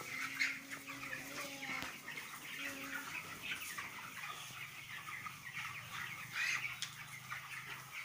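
A large flock of young broiler chickens, about three weeks old, calling in a shed: many short overlapping calls, with a faint steady low hum underneath.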